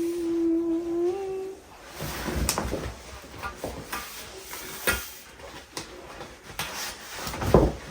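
A held hummed note for about a second and a half, then scattered clicks, knocks and rustling from curtains and their fittings being handled, with a louder thump near the end.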